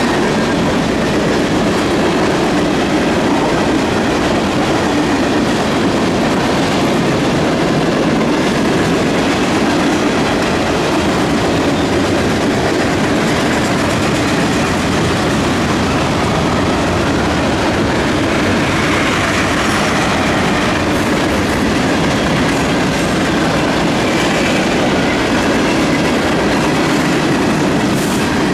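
Mixed freight cars of a fast CSX freight train (hoppers, autoracks and tank cars) rolling past: a loud, steady noise of steel wheels running on the rails.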